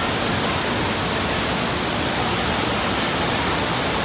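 Steady rushing and churning of water in a wave pool, an even roar with no breaks.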